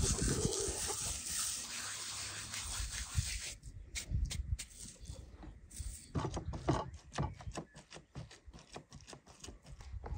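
Dried herbs rubbed and crumbled between two palms with a dry rasping over a bowl of minced meat; after about three and a half seconds this gives way to short, irregular wet squishes as a hand kneads the herbs into the raw minced meat in a steel bowl.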